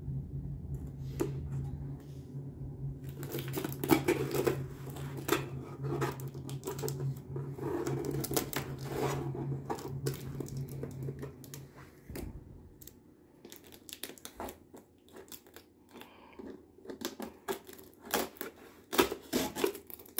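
Clear plastic packing tape being slit and peeled off a cardboard box, ripping and crackling in short bursts. A steady low hum runs underneath and stops about two-thirds of the way through.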